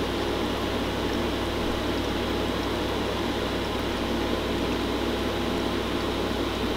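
Homemade fog tornado machine running: a steady whir with a low, constant hum, unchanging throughout.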